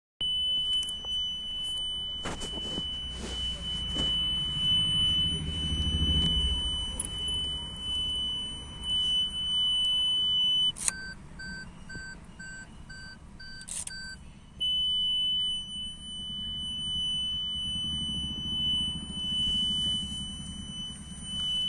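Maruti Suzuki Fronx's reverse parking sensor buzzer sounding a continuous high beep, which stops for about three seconds while a lower, intermittent beeping sounds about twice a second, then comes back steady. It keeps sounding with the car parked in reverse and the key removed, a fault in the parking sensor system.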